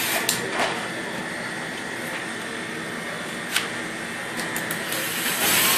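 Electric drill running steadily, spinning a homemade apple peeler, with a few sharp clicks along the way; it grows louder again near the end.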